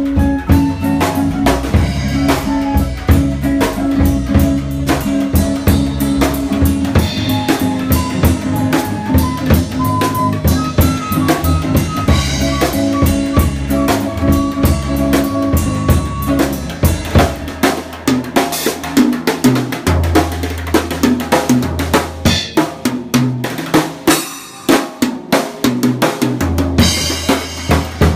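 A swing band playing an instrumental passage, a bass line and melody notes over the drums; about two-thirds of the way through the other instruments drop out and the drum kit plays alone in a drum solo, with bass drum, snare and cymbal hits.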